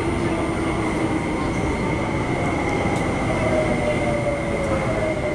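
Inside a moving MTR IKK-train (SP1900 electric multiple unit): a steady running rumble with the traction motor whine falling in pitch as the train slows. A thin steady high tone sits above it.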